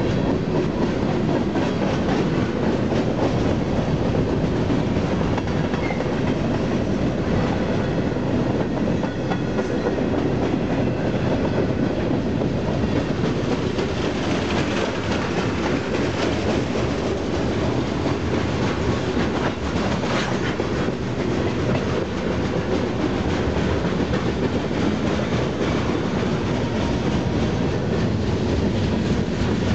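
Freight cars of a long freight train rolling past close by, covered hoppers and then loaded flatcars, their steel wheels clattering steadily on the rails.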